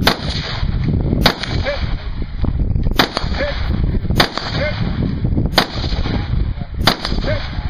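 Six rifle shots fired at a steady pace, about one every second and a half, each a sharp crack.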